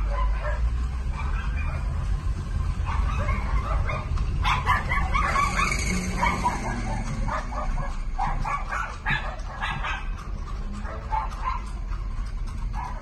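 Dog barking and yipping in quick repeated bursts, busiest in the middle, over a steady low rumble.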